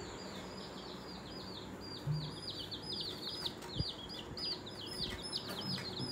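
Young chicks peeping in a wire cage: a rapid, continuous run of short, high, down-curving peeps, several a second, growing busier after about two seconds. A soft knock sounds near the middle.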